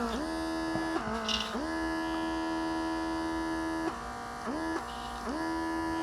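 Small battery-powered airbrush compressor's motor running with a steady electric whine, its pitch dropping three times and climbing back as the load changes. The compressor is being pushed for more pressure but stays at its limit of about 25 psi.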